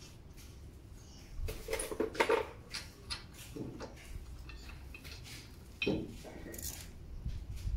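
Metal clinks and taps of hand tools and bolts being handled at a car's front wheel hub and brake rotor, in irregular short bursts, with a cluster about a second and a half in and more around six seconds in.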